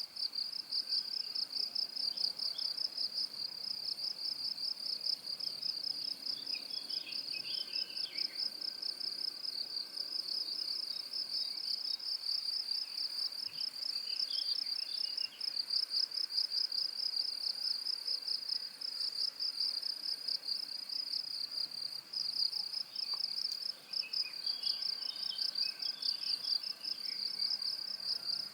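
Cricket trilling in a steady, high-pitched stream of rapid pulses without a break, with a few fainter chirps now and then beneath it.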